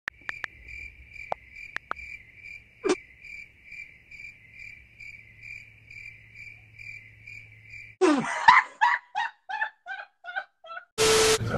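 Crickets chirping: a high pulsing chirp about two or three times a second over a low hum, with a few sharp taps early on. About eight seconds in it stops and gives way to a short run of quick repeated pitched sounds that fade, then a loud burst of noise near the end.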